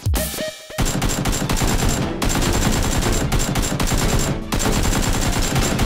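Rapid automatic gunfire sound effects, a dense stream of shots starting about a second in, with two short breaks, near two seconds and near four and a half seconds.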